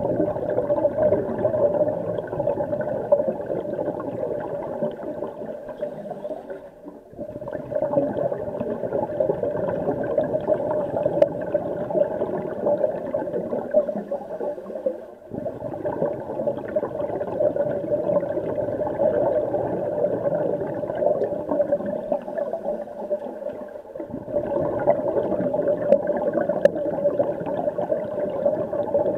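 Underwater sound in a swimming pool: a steady hum with bubbling, gurgling noise, dropping out briefly about every seven or eight seconds.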